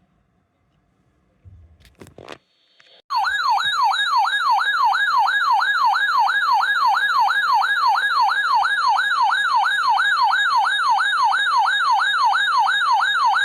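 A few faint clicks, then about three seconds in a loud electronic siren-like alert tone starts, warbling up and down about three times a second. It is a broadcast alert tone ahead of a tornado warning.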